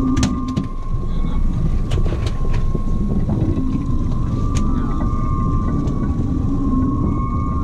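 90 hp outboard motor running at trolling speed, a steady low rumble with a wavering high hum, over wind buffeting the microphone. A few sharp clicks stand out in the first half.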